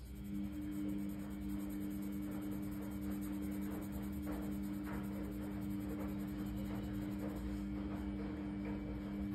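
Coloured pencil scratching on paper as it colours in. Under it runs a steady low hum of two pitches that comes in right at the start and is the loudest sound.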